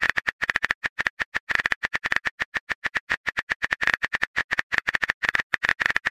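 Phone keyboard typing sound: a fast, steady run of light clicks, about eight to ten a second, as a message is typed out letter by letter.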